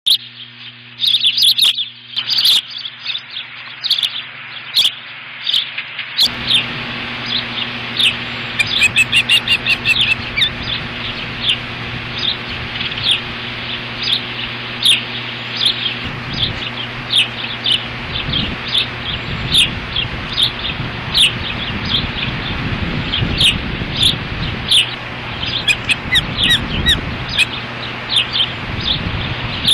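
Ospreys calling from the nest: a long series of short, high chirps, several a second, with a steady low hum and wind noise beneath.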